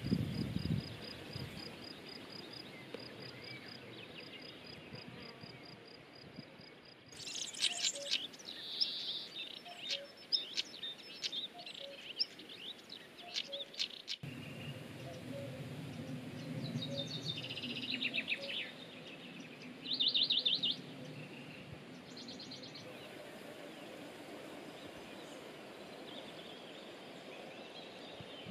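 Small songbirds singing: runs of high chirps and a few quick trills over a soft outdoor background. In the first few seconds there is instead a steady, fast, high-pitched pulsing like a cricket's.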